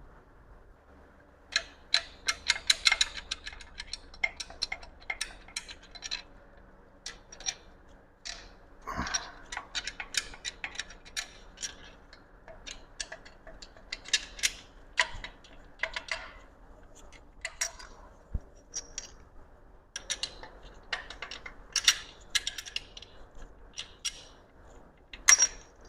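Irregular metallic clicks and clinks of hand tools and steel parts being handled on a Mazda B-Series engine block while the crankshaft main bearing caps are taken off.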